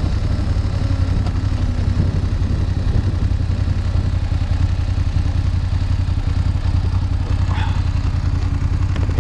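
BMW F 850 GS motorcycle's parallel-twin engine running at a steady engine speed while being ridden.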